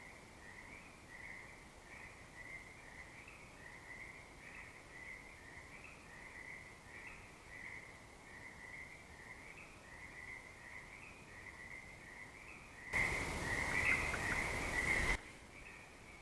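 A steady night chorus of calling animals, a trill pulsing about twice a second. About thirteen seconds in, a loud burst of rushing noise lasts about two seconds and cuts off suddenly.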